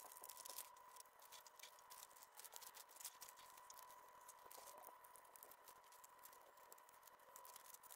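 Faint crackling and crinkling of clear DTF transfer film being handled and cut apart with scissors, many small clicks in quick succession.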